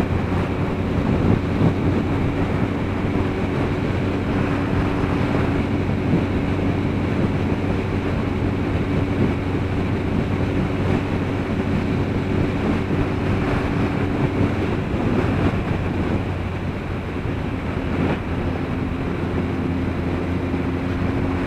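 Motorcycle engine running at a steady cruise under heavy wind rush on the bike-mounted microphone. The engine's hum fades for a few seconds about two-thirds through, then comes back.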